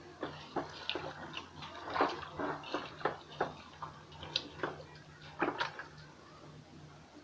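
Scattered light clicks and taps at irregular intervals, several a second in places, over a steady low hum.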